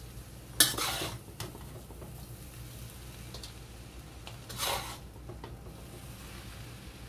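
Spatula clacking and scraping against a wok while tossing stir-fried rice vermicelli: a sharp clack about half a second in with a short scrape after it, a few light taps, and a second scrape a little past the middle, over a steady low hum.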